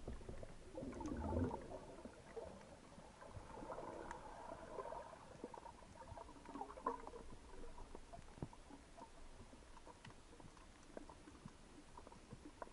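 Faint underwater ambience picked up by a diving camera: low water rumble with scattered small clicks, and a stir of water noise about a second in and again around four to seven seconds.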